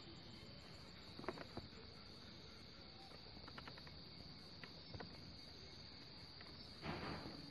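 Faint, steady high-pitched chirring of crickets, with scattered small clicks and a short scraping rustle near the end.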